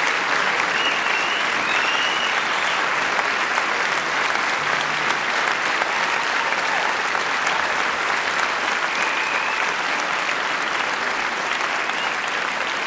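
Large concert audience applauding steadily, easing off slightly near the end.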